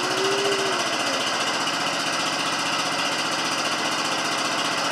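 Kohler 16 HP single-cylinder engine of a Roper T-20 garden tractor running steadily with an even, rapid beat, just after being started. A short whine rises over it about half a second in and slides down before fading.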